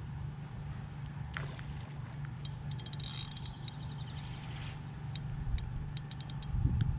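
Wind buffeting the microphone as a steady low rumble, with a run of light ticks and clicks from about two to six seconds in while a barbel is being played on rod and reel.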